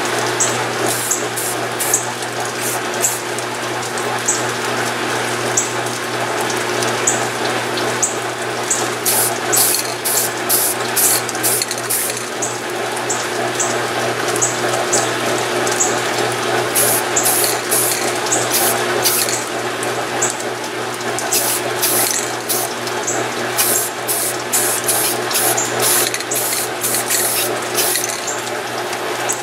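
Aerosol spray-paint can hissing in short bursts, many in quick runs from about nine seconds in, over a steady rush of rain.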